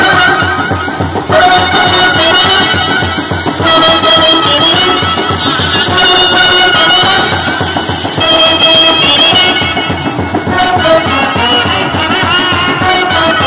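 Indian street brass band playing loudly: trumpets, trombones and baritone horns carry a melody over a steady drum beat.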